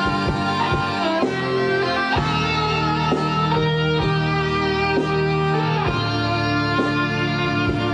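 Instrumental stretch of a pop ballad: electric guitar and bass guitar playing plucked notes over sustained chords.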